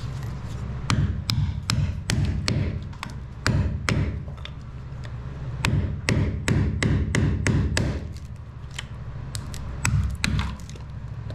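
Hammer striking a cold chisel, chipping out old concrete along the base of a fibreglass boat's hull stringer. Sharp metallic blows come about two to three a second, with a couple of short pauses.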